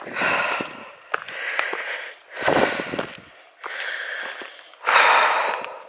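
A walker's heavy breathing close to the microphone: five loud breaths, about one every second, with faint footsteps on a stony path.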